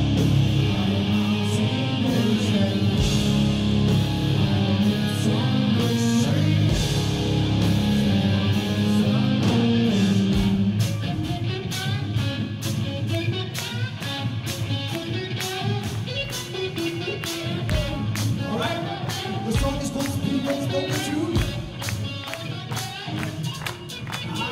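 Heavy rock band playing live: distorted electric guitars, bass and drums, with singing. About halfway through it gets a little quieter and the drums come through as rapid sharp hits.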